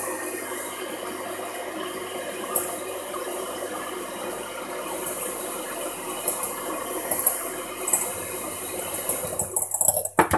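Electric hand mixer running steadily, its twin beaters whisking eggs and sugar in a glass bowl. It stops near the end, with a few sharp clicks and knocks.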